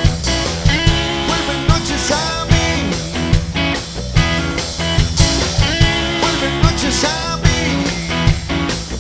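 Live rock band playing an instrumental passage on electric bass and electric guitars over a steady beat, with a lead guitar bending notes.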